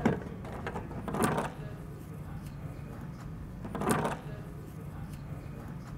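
Hand-handling noise at the embroidery machine's hook area: faint clicks and taps of small metal parts and an Allen key, with two brief louder rustles, about a second in and near four seconds. A steady low hum runs underneath.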